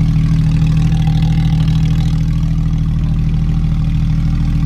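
Porsche 911 GT3 RS flat-six engine with a straight-pipe exhaust, idling steadily with a deep, even note.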